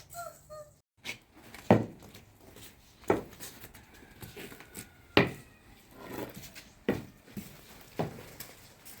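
A series of five sharp knocks, spaced irregularly a second or two apart, each with a short ring.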